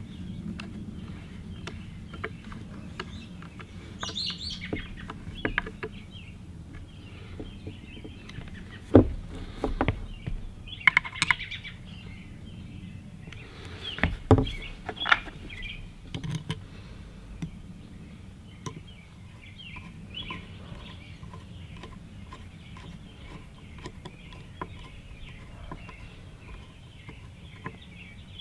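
Small birds chirping in the background, with a few sharp knocks and clicks as a Crosman 761XL multi-pump air rifle is handled and turned over on the work mat.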